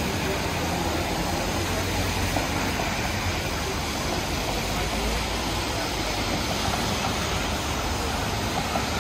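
City tram running along the street: a steady low rumble under an even wash of street noise, with no single clank or bell standing out.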